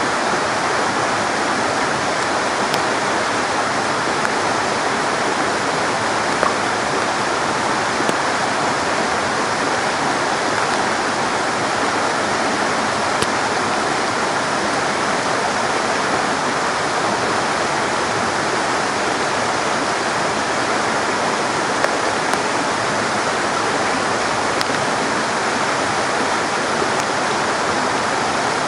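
Rain-swollen mountain river rushing loudly and steadily, its water high after heavy rain.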